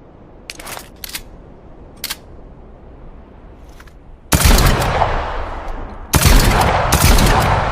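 Short-barreled shotgun: a few light clicks, then two loud shots about two seconds apart, each trailing off in a long echo.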